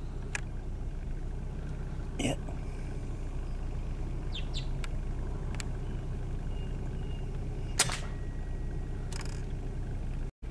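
A single sharp crack from a pre-charged air rifle firing, about eight seconds in: the shot that drops a rabbit with a headshot. A steady low hum runs underneath.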